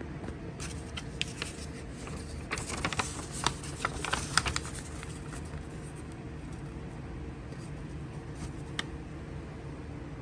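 Paper handling: a few seconds of crinkling and rustling clicks as the alarm's instruction leaflet is handled and turned, with one more click later, over a steady low room hum.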